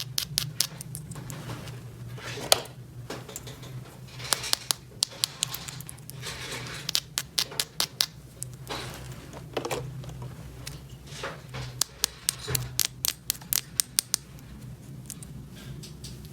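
Small plastic toy pieces being handled: a run of sharp clicks and taps, thickest in the middle and later part, with scraping and rustling between them over a low steady hum.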